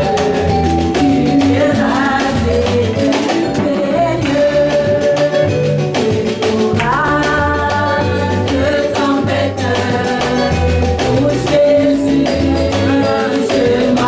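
A worship song sung by women into microphones, over instrumental accompaniment with a bass line and a steady beat.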